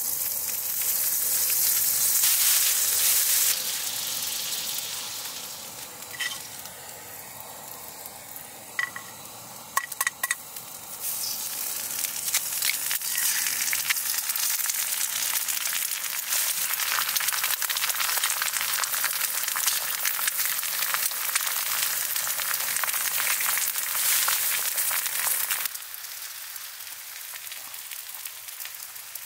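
Bacon sizzling in a frying pan. The sizzle is loud for the first few seconds, softer for a stretch with a few light clicks, loud again from about eleven seconds in, and drops away abruptly near the end.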